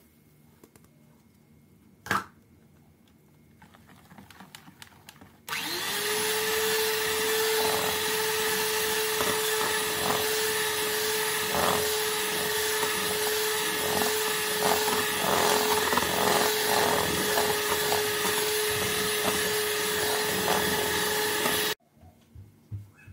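A single sharp knock about two seconds in. Then an electric hand mixer starts about five seconds in, its motor spinning up to a steady whine as the beaters churn cocoa and flour into the cake batter, with irregular clatter against the bowl. It cuts off suddenly near the end.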